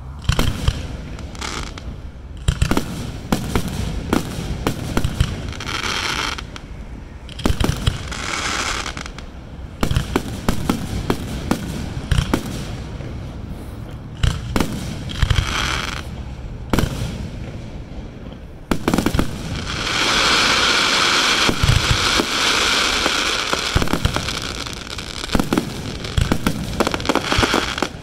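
Aerial fireworks shells bursting overhead in quick succession, with many sharp bangs and short patches of hissing. About two-thirds of the way in, a dense, sustained crackle lasts several seconds.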